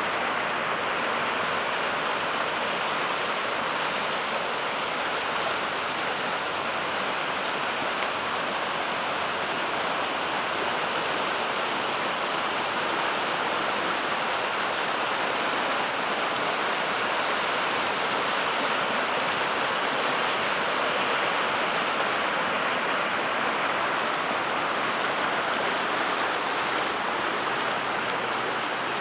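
Floodwater of a swollen creek rushing past trees and churning over rocks in a steady, unbroken wash of noise.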